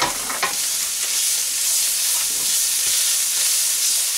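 Chilli paste and sliced green chilli sizzling in hot oil in a ceramic-coated pan, a steady hiss, with a few scrapes and taps of a spoon stirring it, mostly near the start.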